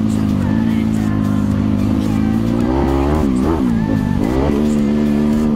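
Motocross bike engine running hard on a dirt track, holding a steady pitch, then dropping and climbing back up between about three and four and a half seconds in as the throttle is rolled off and opened again.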